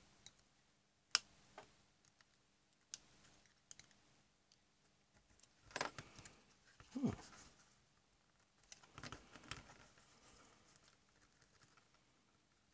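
Sharp little clicks of a metal spudger against the casing of a Linn Axis turntable motor, with scraping and handling noise about six to seven seconds in as the coil assembly is pried loose.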